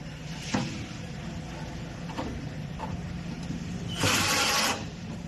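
Cordless drill briefly driving a screw into the sheet-steel frame of a metal cabinet, a short burst of under a second near the end, after a few light metal clicks of the screw and bit being set.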